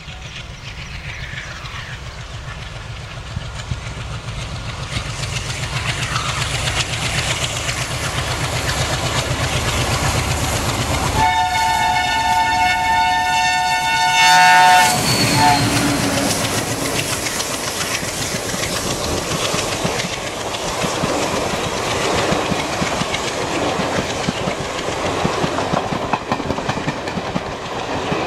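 A WDM-2 diesel-electric locomotive, with its ALCO 16-cylinder engine, approaches with its engine note growing steadily louder and blows a two-note horn for about three and a half seconds as it draws level. The passenger coaches then roll past with steady wheel clatter over the rail joints.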